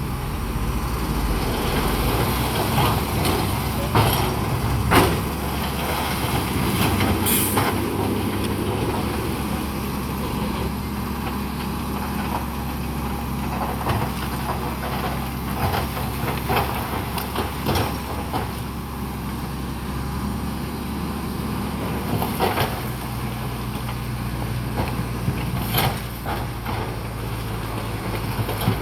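Heavy diesel earthmoving machinery running steadily, with a few sharp knocks and clanks scattered through it. The engine note changes about two-thirds of the way through.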